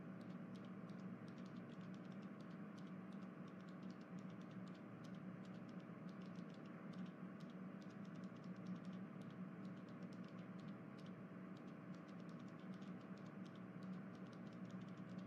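Faint, rapid, irregular clicking over a low steady hum.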